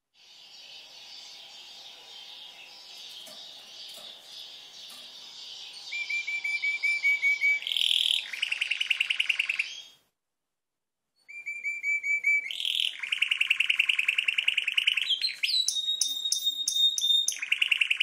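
Red-factor canary singing: a soft warbling song that swells about six seconds in into loud, rapid repeated notes and fast rolling trills. It breaks off for about a second, then resumes with quick trills and a long steady whistled note near the end.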